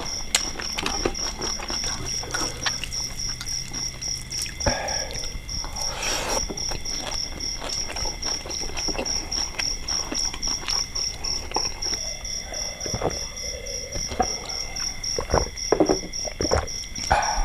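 Night chorus of calling insects or frogs: a high chirp pulsing evenly about four times a second over steady trilling tones. Close chewing and short clicks and taps of hands eating from plates sound through it.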